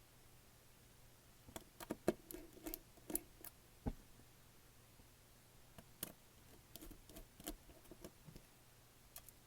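Light, scattered clicks and taps of a small screwdriver and tiny screws against a tablet's plastic housing as its screws are driven back in, in two irregular clusters of a couple of seconds each.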